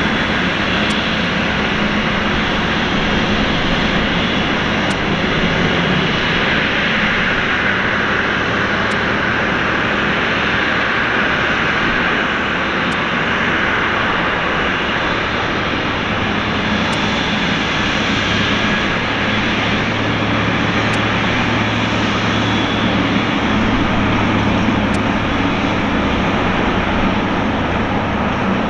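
Boeing 777-300ER's twin GE90 turbofan engines running at taxi power as the airliner rolls slowly past: a steady jet rush with a low hum underneath.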